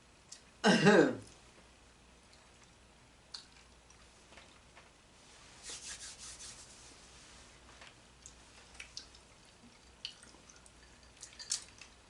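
A person clears their throat once, briefly, about a second in. After that only faint scattered clicks and a short soft rustle around six seconds in are heard.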